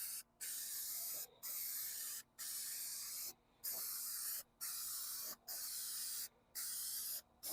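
Finish being sprayed onto a carved wooden plaque in short repeated bursts: about eight hissing sprays, each just under a second long, with brief pauses between them.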